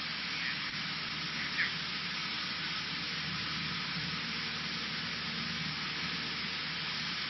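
Cessna 152 in flight heard from inside the cabin: the steady drone of its four-cylinder Lycoming O-235 engine and propeller mixed with a hiss of airflow, holding an even level throughout.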